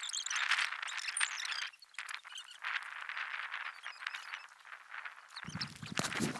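Fishing reel's ratchet clicking rapidly in spurts as a hooked grass carp takes line, with a short break about two seconds in. A low rumble comes in near the end.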